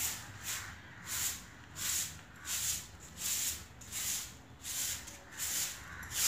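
Short-handled broom sweeping a concrete floor: a steady run of dry swishes, about two strokes a second.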